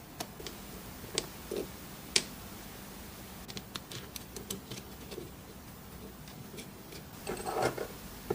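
Scattered light clicks and taps of small parts being handled during a hands-on tool restoration, sharpest about two seconds in, then a run of quick small ticks and a brief rustle near the end.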